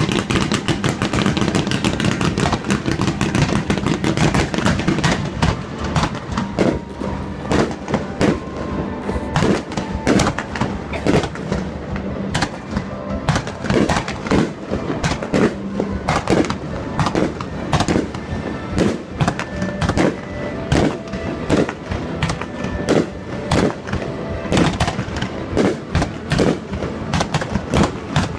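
Fireworks going off in quick succession, a dense run of bangs and crackles throughout, with music playing along with them.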